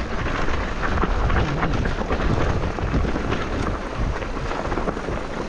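Wind buffeting the microphone in a steady low rumble while a mountain bike rolls over rough, loose ground, its tyres crunching on stones and the bike rattling with many small knocks.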